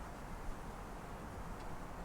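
Steady low hum of distant city traffic heard through an open window, with a faint short knock about half a second in.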